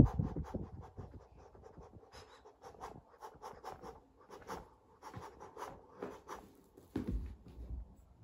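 Fleece blanket rustling and being scratched as a Sphynx cat paws and burrows in it: a run of short, irregular scratchy rustles, opening with a thump and growing heavier about seven seconds in.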